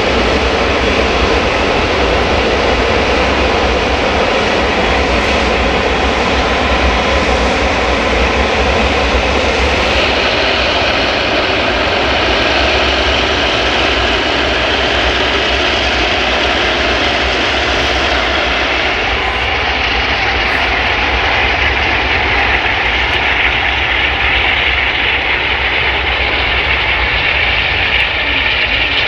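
Airbus A380's four Rolls-Royce Trent 900 jet engines running at taxi power, a steady, loud jet whine over a rumble as the airliner rolls along the ground.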